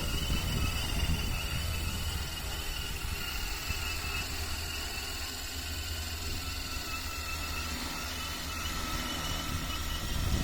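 Agricultural spraying drone's rotors humming steadily, a high whine that wavers slightly in pitch, under heavy wind rumble on the microphone.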